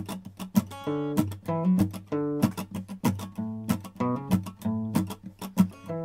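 Background music: an acoustic guitar strummed in a steady rhythm, without singing.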